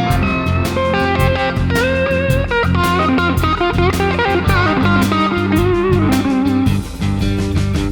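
Background music: an electric guitar playing bending, bluesy lead lines over bass and a steady drum beat.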